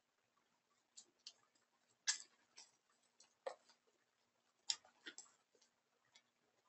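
Donkeys moving about in dry brush: irregular sharp clicks and snaps, about seven over a few seconds.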